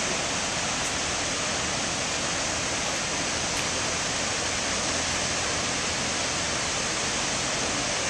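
Kahuna Falls, a tall waterfall, giving a steady, even rush of falling water.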